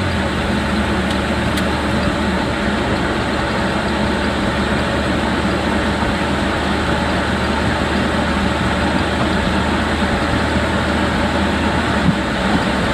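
Jeep driving, steady road and drivetrain noise heard from inside the vehicle, with a brief bump near the end.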